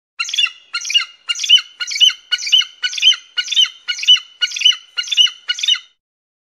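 An eagle calling a rapid series of about eleven sharp, high-pitched notes, roughly two a second, which ends abruptly near the end.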